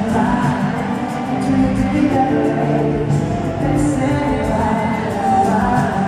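Live amplified pop music with a singer, heard from within the audience of a large hall.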